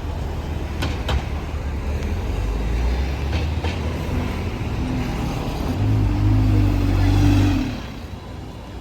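Bus engine running close by with traffic noise, a low drone that swells louder about six seconds in and then drops away sharply near the end.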